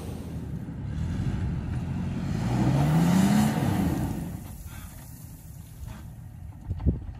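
2018 Toyota 4Runner TRD Off-Road's 4.0-litre V6 engine revving up, rising in pitch from about two seconds in. It then eases off and goes quieter. A single sharp knock comes near the end.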